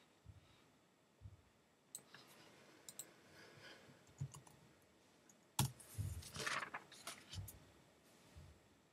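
Faint computer mouse clicks and keyboard typing. A few scattered clicks are followed by the loudest click about five and a half seconds in, then a quick run of keystrokes.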